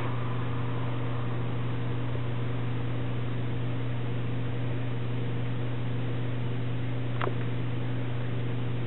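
Steady low hum under an even hiss, with one small click about seven seconds in.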